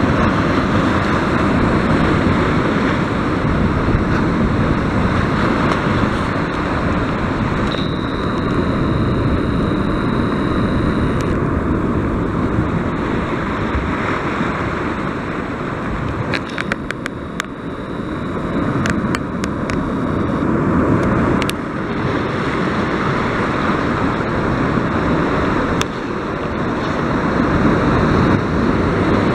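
Rough sea surf, waves breaking and churning against rocks in a steady rushing roar that swells and eases, with wind buffeting the microphone.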